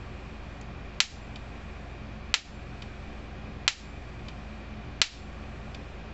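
American Farmworks 120-mile 6.7-joule electric fence charger firing its output pulses as sparks across a small gap between a hammer and the terminal: four sharp snaps, evenly spaced about 1.3 seconds apart. The strong, hard-hitting pulses show the repaired unit working.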